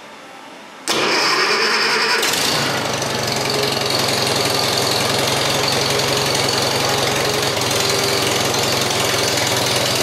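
1979 Farmall 140's four-cylinder gasoline engine cranked by the starter, starting about a second in. It catches after just over a second of cranking and runs steadily at low throttle with the choke half out.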